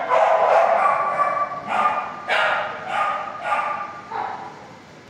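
Dogs barking over and over in a shelter kennel hall, the barks echoing off the hard walls; they come thick at first, then thin out and grow quieter toward the end.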